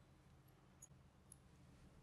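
Near silence with two faint metallic ticks about half a second apart, about a second in: a screwdriver and cutting pliers working at a small transformer's laminated steel core.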